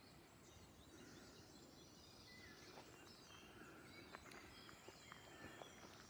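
Faint birdsong: several small birds chirping and trilling with short high notes, over a low rumble of background noise.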